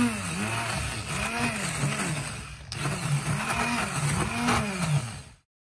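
Electric stick blender whirring in a bowl of eggs and sugar, being beaten until pale and frothy; its motor pitch wavers up and down about twice a second as it works through the mixture. It cuts off suddenly near the end.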